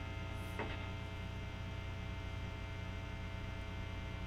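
Steady mains hum and buzz from a tube guitar amp with an Epiphone Wilshire P90 plugged in and its P90 pickups turned up, which the player takes for ordinary single-coil hum rather than a grounding fault. A faint click about half a second in.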